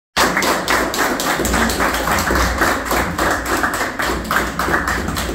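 A team clapping together in a quick, steady rhythm, about four to five claps a second, with low thumping underneath.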